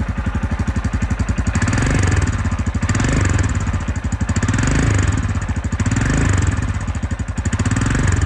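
Royal Enfield Himalayan's single-cylinder engine running with a steady pulsing beat, its loudness swelling and easing about once a second.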